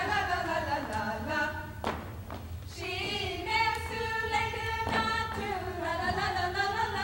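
A small group of women singing a Hungarian folk song unaccompanied, in long held notes. A couple of dance steps thump on the wooden stage floor, about two seconds in and again near five seconds.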